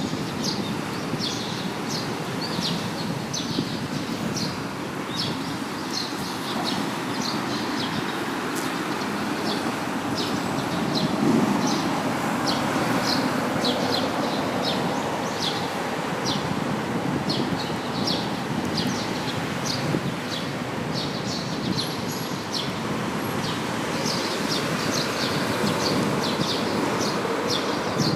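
Outdoor ambience: a steady rush of wind-like noise with many short, high chirps repeating irregularly throughout.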